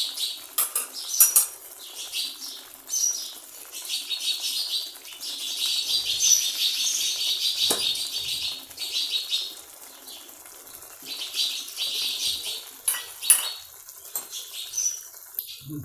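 Sparrows chirping busily, a dense run of quick high chirps, with a few sharp metal clinks of kitchen utensils near the start, about eight seconds in and around thirteen seconds.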